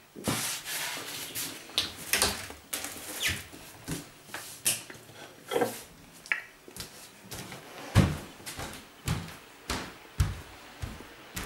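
Irregular knocks, clicks and rustling of household items and boxes being handled and set down, with a few heavier thumps about eight to ten seconds in.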